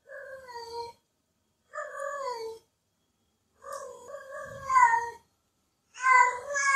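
Female cat in heat calling: four drawn-out meowing cries, each dropping in pitch at its end, with short silent gaps between them. The third cry is the longest.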